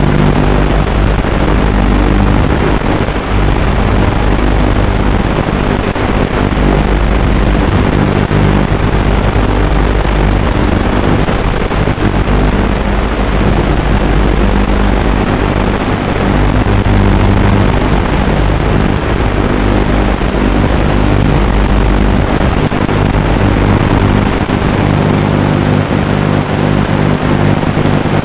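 Steady loud static hiss with an even low hum underneath, unchanging throughout, typical of the audio channel of an analog FPV video receiver recording with no microphone on the camera.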